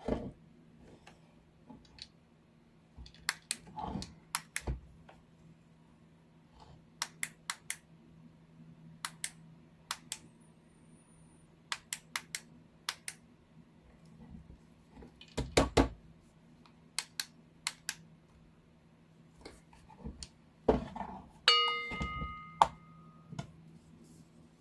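Sharp clicks and knocks of small plastic parts and tools being handled, the clicks often in quick pairs, with a brief ringing tone near the end, over a faint steady low hum.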